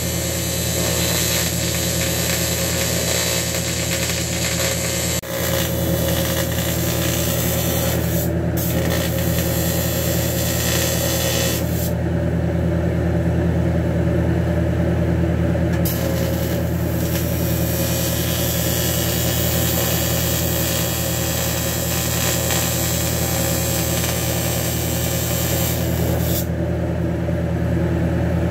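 AC TIG welding arc buzzing steadily on a cracked aluminium engine block, a constant low hum with a hiss on top.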